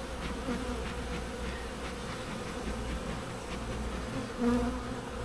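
Honeybees buzzing over an opened hive, a steady hum, with one brief louder burst about four and a half seconds in. The colony is stirred up and excited after being smoked.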